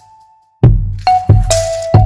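Background music: a beat of sharp struck hits, each with a short ringing pitched tone, about two a second. It drops out briefly at the start and comes back after about half a second.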